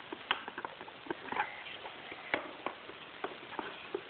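Scattered light clicks and taps, irregularly spaced, from hands handling and opening a toy gift's packaging.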